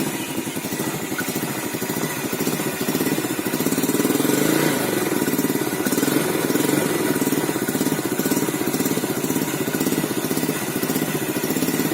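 Yamaha Vega ZR motorcycle's single-cylinder four-stroke carbureted engine idling through its exhaust, a steady rapid putter that swells a little about four seconds in. The exhaust sounds normal.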